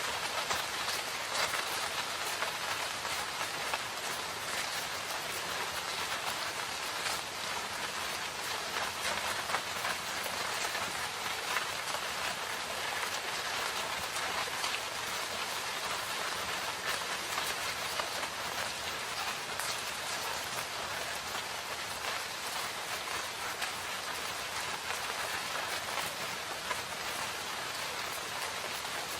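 Steady rain falling on forest foliage, a dense even hiss with many fine drop patters and no let-up.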